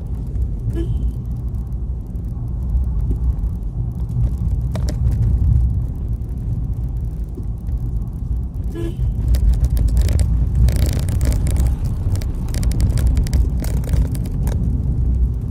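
Steady low engine and road rumble heard inside a pickup truck's cabin while driving, with two short beeps, about a second in and near nine seconds.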